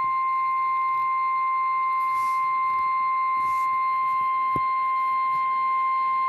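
Emergency Alert System attention signal rebroadcast over AM/FM radio: one loud, steady, piercing electronic tone held without a break. It announces the flash flood warning that follows.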